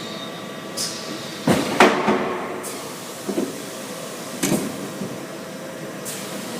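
Welding machine being worked: a handful of sharp mechanical knocks and clanks, the loudest two close together about a second and a half in, with a few short hisses, over a steady machine hum.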